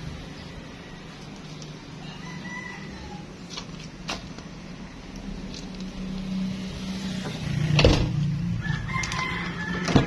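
A rooster crowing twice, short calls over a steady low hum, with a couple of sharp knocks; the loudest knock comes near the end.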